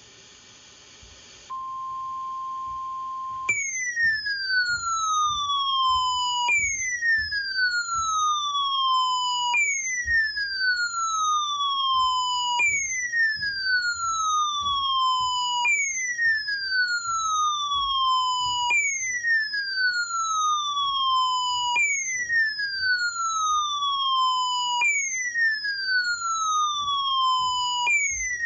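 A steady NOAA Weather Radio alert tone sounds for about two seconds. Then a weather radio's alarm starts: a siren-like tone sliding down from high to low, repeating about every three seconds, set off by the station's Required Weekly Test.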